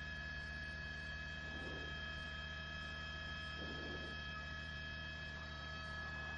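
Electrical hum with several thin, high, unchanging tones layered over it.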